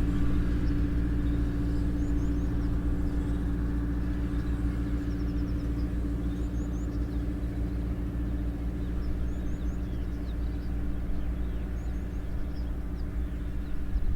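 A steady low mechanical hum, like a running engine, holding one pitch throughout, with a few faint short high chirps over it.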